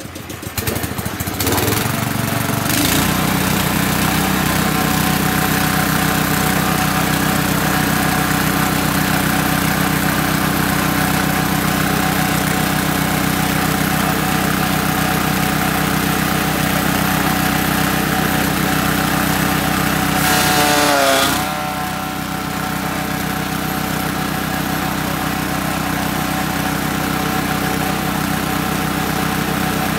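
Small engine on a YM3000 chaff cutter being pull-started, catching within the first couple of seconds and then running steadily with the cutter turning. About twenty seconds in the pitch wavers downward briefly and the sound then settles a little quieter.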